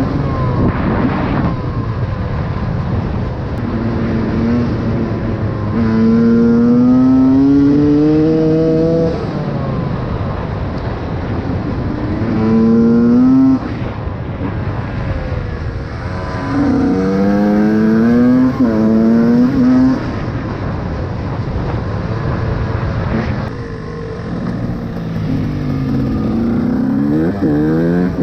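KTM EXC 125 two-stroke engine with a Scalvini expansion pipe, ridden hard. It rises in pitch over several bursts of throttle and shifts up through the gears, with a short drop at each change, then eases off between bursts.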